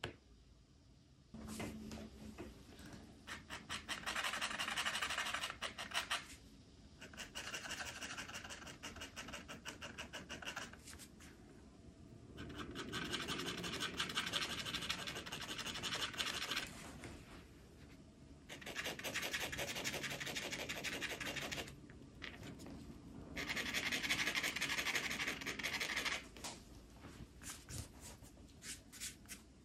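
Rapid back-and-forth scraping strokes on a surface, in five bouts of a few seconds each with short pauses between.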